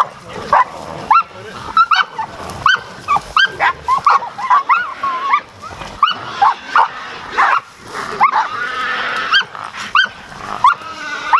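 Hog-hunting dogs barking and yelping in quick succession, several short, sharp barks a second, with a longer, rougher cry about nine seconds in.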